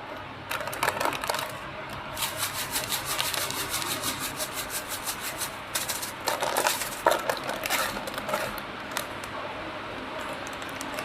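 Filled plastic packaging bags being handled, the film crinkling and rubbing with a rapid run of scratchy clicks.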